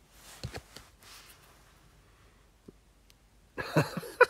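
Faint rustles and clicks of trading cards being handled, then near the end a short throat sound like a cough.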